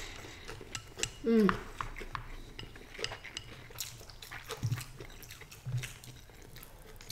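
Chopsticks clicking and tapping against small glass bowls and a serving plate during a meal, short sharp clicks scattered throughout, with soft low thumps a little later. A brief falling vocal sound, a short hum or voice, comes about a second in and is the loudest moment.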